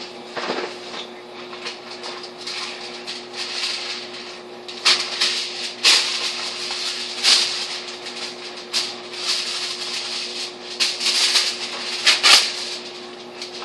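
Food and packaging being handled in a kitchen: a run of rustles and knocks, the sharpest about five, six and seven seconds in and again near the end, over a steady low hum.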